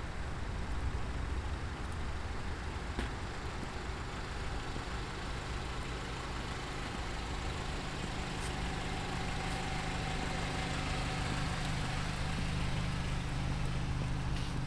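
A motor vehicle's engine running nearby, a steady low rumble that grows a little louder over the second half.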